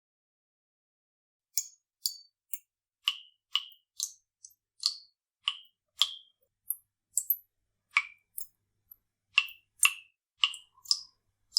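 Dripping taps: water drops falling one after another at an irregular pace, about two a second, each a short, sharp plink at a varying pitch. The drips start about a second and a half in.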